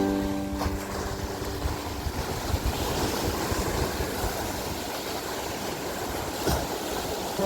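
Ocean waves washing on the shore, a steady rushing hiss over a gusty low rumble. The last notes of background music die away in the first couple of seconds.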